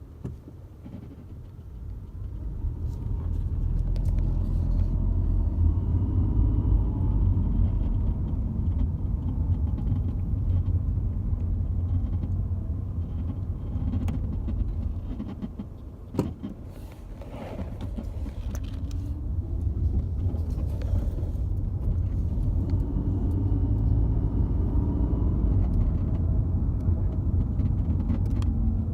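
A 2012 Ford Fusion Hybrid being driven, with a steady low road rumble that eases off as the car slows about halfway through, a single sharp knock as it comes near a stop, then builds again as it pulls away. The car has a front-end creaking and crunching that comes on under braking, which the owner puts down to worn strut caps or to worn control arms and tie rod ends.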